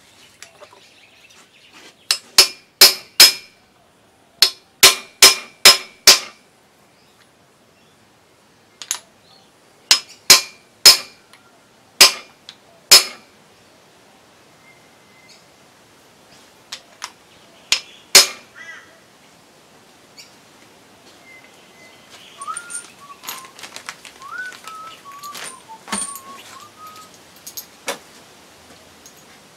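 Welsh (core) plugs being hammered into the cast-iron block of a Holden Ecotec V6. Sharp metallic strikes that ring briefly come in runs of four or five, with pauses between runs. Fainter clinks and rattles follow near the end.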